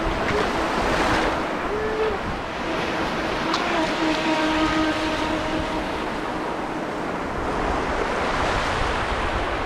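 Surf and wind on the microphone, with the thin whine of a radio-controlled jet boat's motor shifting up and down in pitch during the first half, then fading under the surf.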